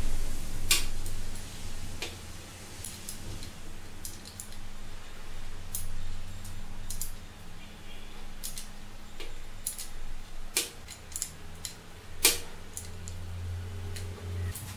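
Small metal clicks and clinks at irregular intervals as a nut, ring terminal and spanner are handled on a starter solenoid terminal, with a steady low hum underneath. The loudest click comes a little after twelve seconds in.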